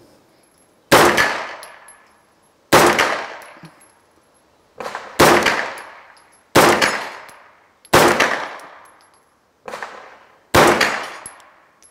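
Schmeisser AR15-9 Sport 9 mm pistol-calibre carbine fired in slow single shots, six shots a second or two apart, each followed by an echo that fades over about a second.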